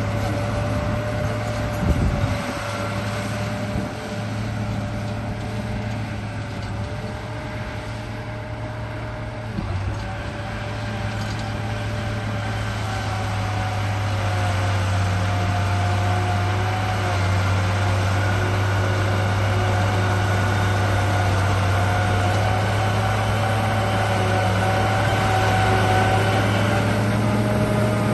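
Radio-controlled bulldozer's electric drive motors and gearing whining as it runs, the pitch stepping up and down a few times as the throttle changes, with a brief knock about two seconds in.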